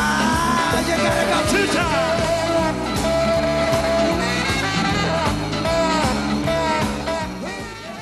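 Music with a sung vocal melody over a steady bass beat.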